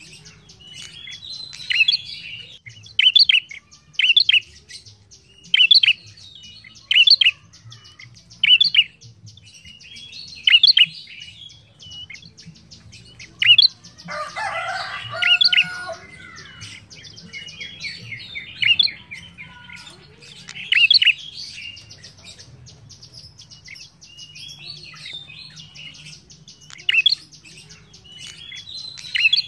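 Ashy tailorbird (sold as "prenjak kepala merah") calling in a cage: loud, sharp high chirps repeated every second or two, with a short denser jumble of lower notes around the middle, over a faint low hum.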